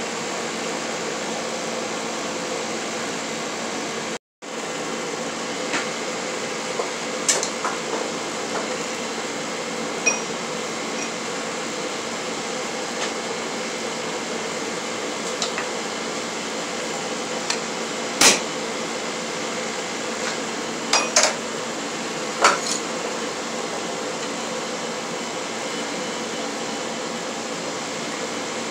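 A steady fan-like drone in the smithy, under a handful of scattered sharp clinks and knocks of steel on the anvil as the hot bar and tools are handled, the loudest about two-thirds of the way through. No run of steady hammering.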